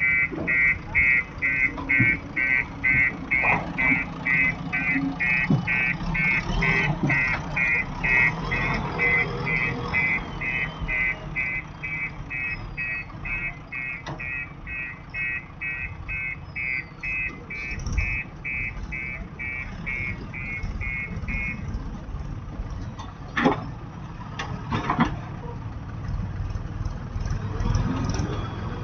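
A reversing alarm beeping about twice a second over a running engine, stopping about three-quarters of the way through. A couple of sharp knocks follow near the end.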